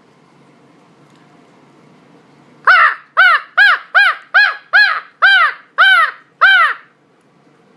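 A man imitating crow caws with his own voice, without a call, as a turkey-hunting locator call: a run of about nine loud, harsh caws, roughly two a second, starting a few seconds in.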